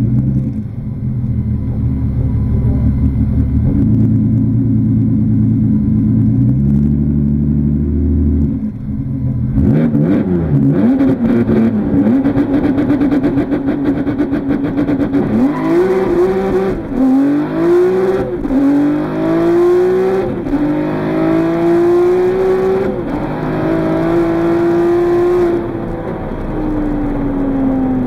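Interior sound of a twin-turbo 3.2 VR6 engine in a VW Golf 2: a rumbling idle with small blips of throttle, then the revs held steady, then a full-throttle quarter-mile run with the engine note climbing through four quick upshifts. Near the end the revs fall away steadily as the throttle is lifted.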